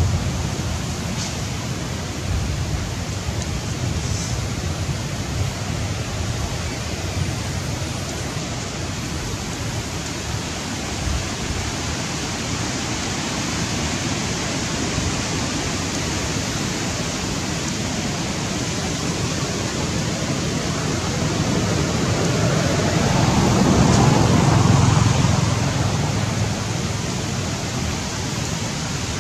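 Wind buffeting an outdoor microphone: a steady hiss and rumble that swells in a stronger gust about twenty-four seconds in.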